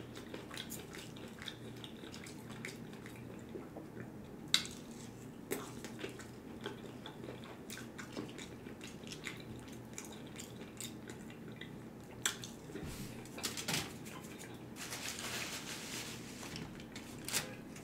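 Close-up handling sounds: small clicks and crackles of a plastic sauce cup's peel-off lid being worked open, with quiet chewing between. A denser crinkling of paper follows for a second or two near the end.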